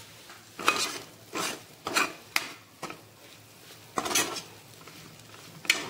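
A spoon stirring and scraping a thick mung dal paste around a non-stick kadhai, mixing in freshly added chilli powder, in a series of short, separate scraping strokes against the pan.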